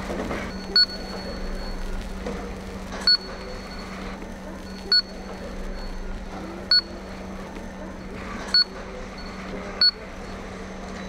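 Short electronic beeps from a device, six in all, coming every second or two at a slightly uneven pace, over a steady low hum.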